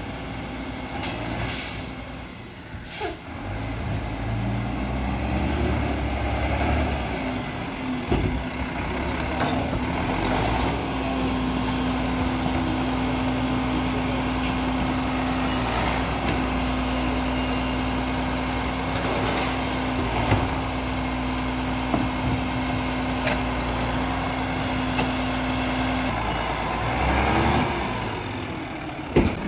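Mack LEU garbage truck with a Labrie Expert 2000 side-loader body: two air brake hisses about two and three seconds in, then its diesel engine runs steadily. A steady pitched hum sits over the engine from about ten seconds in until a few seconds before the end, and another sharp hiss comes right at the end.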